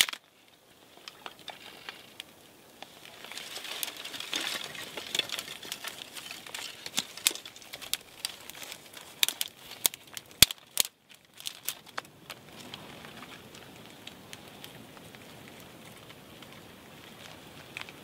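Dry kindling twigs and grass crinkling and snapping as they are handled and fed onto a freshly lit wood fire, with the fire's own crackle. The clicks and snaps come thickest from about three to twelve seconds in, and one sharp snap just after ten seconds is the loudest.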